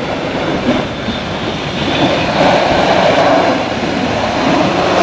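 Toyota Land Cruiser 80-series SUV working on packed snow: engine running under load as the wheels churn and spin, a steady rumbling noise that grows louder about two seconds in.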